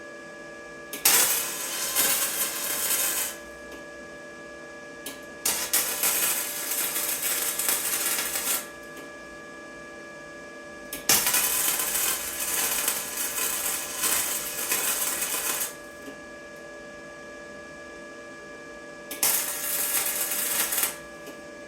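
Electric welding arc crackling in four short runs of a few seconds each, with pauses between welds, over a steady electrical hum.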